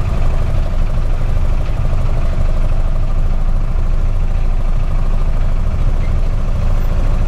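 Steady low engine rumble of a motor idling, unchanging throughout.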